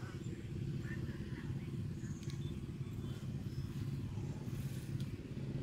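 A steady, low engine rumble with a few faint, high chirps.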